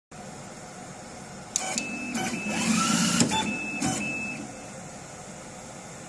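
Coaxial cable stripping machine running a strip cycle: four sharp clicks, a steady high whine between them and a motor rising in pitch, starting about a second and a half in and stopping about four and a half seconds in.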